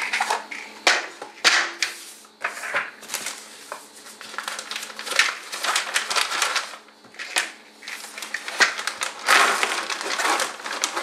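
A clear plastic vacuum-sealer bag and cardboard ammunition packaging rustling and crinkling as they are handled, with scattered small clicks.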